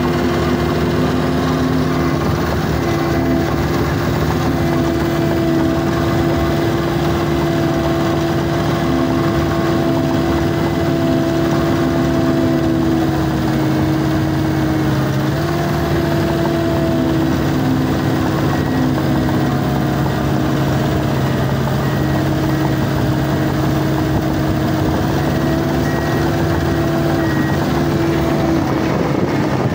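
John Deere 650K LGP crawler dozer's diesel engine running steadily under load while the blade pushes dirt. Its note dips slightly about halfway through and again near the end.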